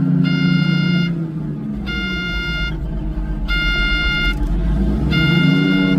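Komatsu D375A-5 dozer's diesel engine running with the accelerator held full. Its note sags about a second in and climbs back near the end. A warning beeper sounds in an even pattern of about one beep every second and a half. The engine is held to half acceleration by the safe mode that an intermittent CAN communication fault sets off.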